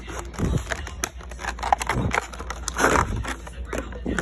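Packaging of a wireless mouse being opened by hand: irregular rustling, scraping and clicking.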